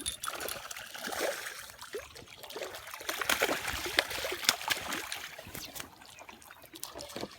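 Water splashing and trickling, with many small sharp splashes and drips.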